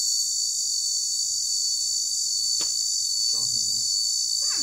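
A chorus of insects shrilling in a steady, unbroken high-pitched band, with a faint click about two and a half seconds in and soft voices near the end.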